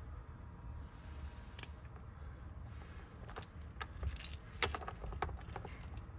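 Keys and small metal door-lock parts clicking and jingling as they are handled, in a scattering of light metallic clicks that bunch up in the second half.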